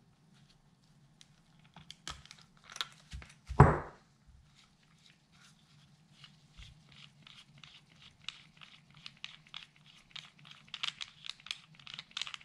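Heat sink nut of a Deep6 second-stage scuba regulator being loosened with the adjustment wrench: a few clicks and one sharp knock about three and a half seconds in. Then comes a fast run of light clicks, about five a second, as the nut is turned off by hand.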